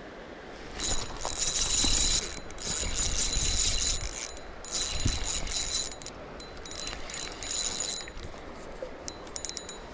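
Fishing reel ratcheting and whirring in several bursts of one to two seconds, with scattered clicks near the end.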